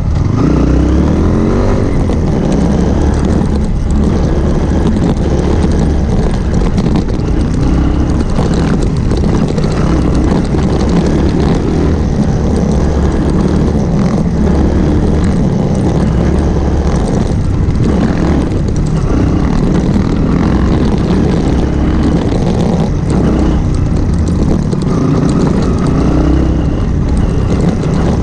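Single-cylinder motorcycle engine running over a rough dirt trail, its note rising and falling with the throttle, under a steady rush of wind and road noise, heard close from a mount on the bike. A few knocks from the bumpy ground stand out now and then.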